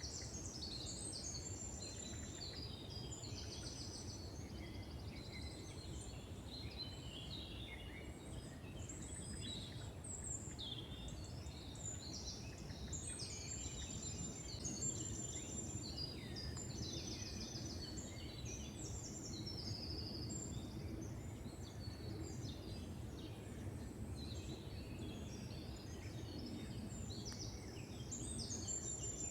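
Forest birdsong: several songbirds singing over one another in a dense chorus of trills and whistles, over a steady low rumble.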